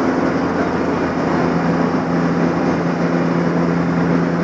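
Diesel engine drone of asphalt-laying machinery, with an Ammann double-drum roller compacting fresh asphalt; a steady low hum under engine noise.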